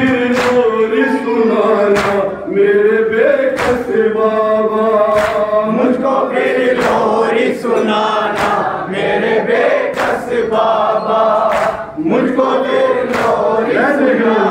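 Men chanting a Shia noha, a Muharram lament, together in unison without instruments. Sharp hand strikes of matam, chest-beating, keep the beat under the voices.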